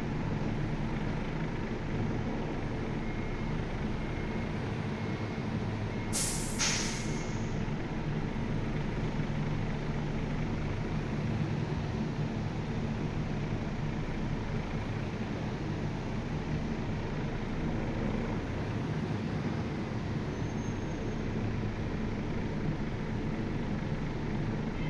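Heavy truck's diesel engine running steadily, with one short, sharp hiss of compressed air from the air brakes about six seconds in.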